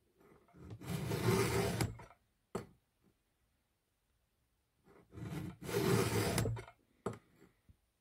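Round 3/16-inch chainsaw file in a file guide rasping across a saw chain cutter in two strokes, each about a second and a half, each followed by a short tap.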